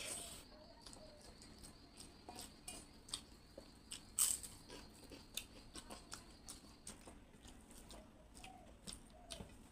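Close-up chewing and mouth clicks of a person eating, with one loud crunch about four seconds in.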